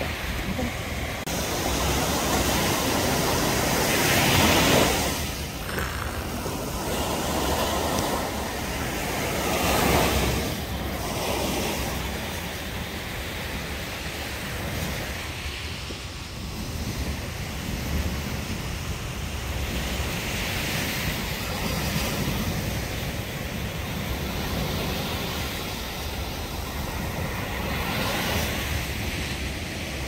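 Waves breaking and washing up on a sandy beach, with wind on the microphone. The surf swells louder about four seconds in and again around ten seconds.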